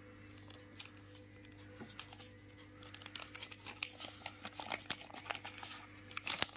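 Plastic ziplock pouch crinkling as it is handled and pulled open, the crackles sparse at first and much busier from about halfway, over a steady low hum.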